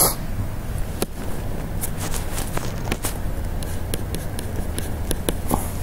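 Steady low hum of room tone with scattered faint clicks and light taps.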